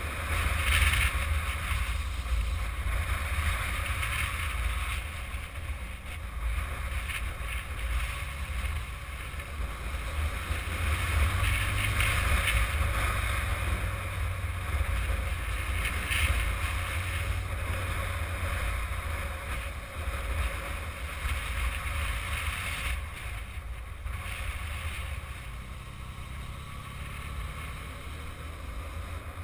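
Steady wind rush and buffeting on the camera microphone of a Yamaha XJ600 Diversion motorcycle under way, with its air-cooled inline-four engine and the tyre noise muffled beneath. The rush swells and eases a few times and is somewhat quieter near the end.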